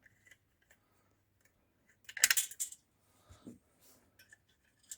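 Small metal parts of a diesel heater clicking and clinking as they are handled and pulled off, with one louder, brief metallic clatter about two seconds in.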